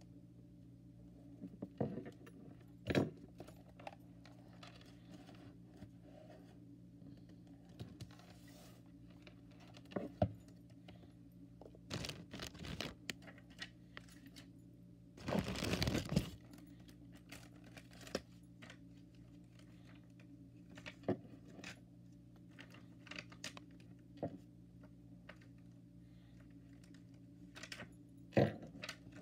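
Paper-crafting handling sounds: scattered taps, clicks and light rustles as paper hearts and a sticker sheet are handled on a desk, with a denser paper or plastic rustle lasting about a second midway. A steady low hum runs underneath.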